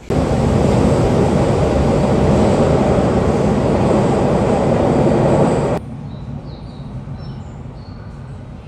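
Toei Oedo Line linear-motor subway train running past the platform, a loud steady rumble and rush that cuts off suddenly about six seconds in. Quieter station hum follows, with a few faint short high tones.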